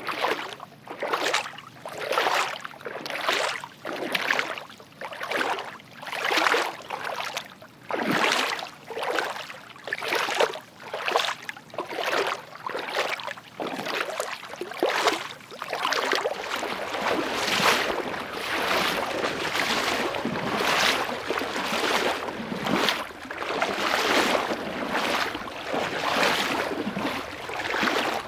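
Footsteps at a steady walking pace, a little more than one step a second, each step a long noisy swish rather than a sharp click. About halfway through, a steady hiss begins to fill the gaps between the steps.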